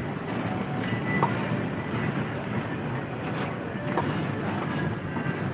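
Steady background hubbub of a busy outdoor street market: a mix of distant voices and traffic, with a few faint clicks.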